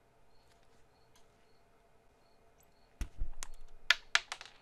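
A few faint ticks, then about three seconds in a dull low knock followed by a quick run of five or six sharp clicks and knocks of hard objects being handled.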